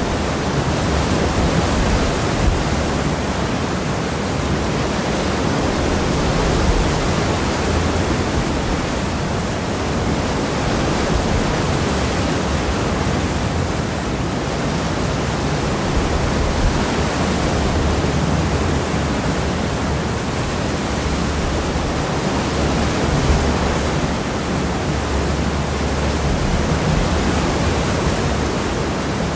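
Seawash churned up behind a cross-channel ferry, heard from the stern: a steady rushing of water with a low rumble beneath it, slowly swelling and easing.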